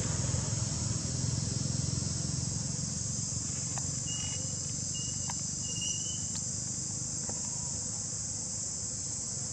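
Steady high-pitched shrill of an insect chorus in the forest, over a low rumble that slowly fades. A few faint short high chirps come about four to six seconds in.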